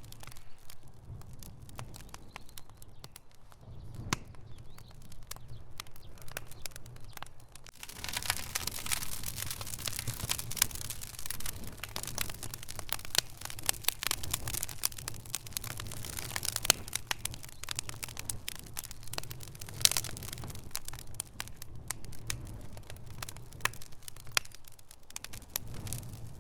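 Fire crackling: a steady run of sharp pops and snaps over a low rumble. It grows busier and louder about eight seconds in.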